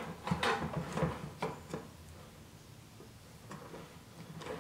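Soft knocks and rubbing from handling a plastic 5-gallon bucket and a tape measure as the bucket is turned on a metal counter. There are several in the first two seconds, then a quieter stretch with a couple more near the end.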